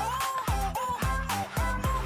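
Background music with a steady beat of about two strokes a second, a bass line and a short repeating melody.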